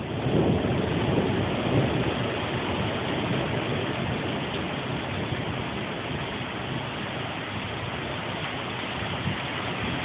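Storm wind gusting hard through the trees, with rushing noise and low buffeting on the microphone; a strong gust in the first couple of seconds eases off through the middle and starts building again near the end.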